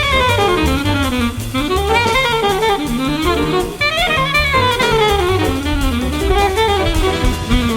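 Jazz recording: a saxophone plays fast melodic runs sweeping up and down, over bass and drums.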